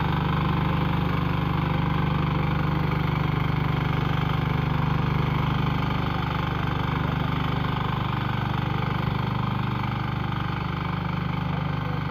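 Walk-behind power tiller's engine running steadily while its rotary tines dig through the soil.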